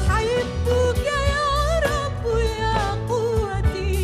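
A woman singing an Arabic Christian hymn, her melody wavering and ornamented, over an instrumental backing with a steady bass and a regular beat.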